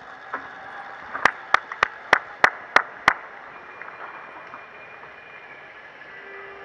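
A spectator clapping hands quickly, about three claps a second, seven in a row, to cheer on a passing rider, over steady outdoor background noise.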